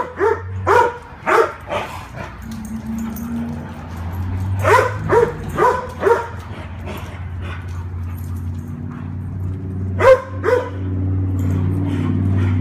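Dog barking during rough play, short sharp barks in three quick bunches: about five at the start, four more a few seconds later, and two near the end, over a steady low hum.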